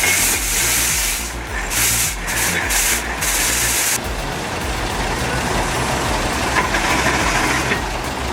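Steam shovel venting steam in a series of sharp hissing blasts over the first four seconds, over a low machinery rumble. After that the hiss and rumble run on more steadily.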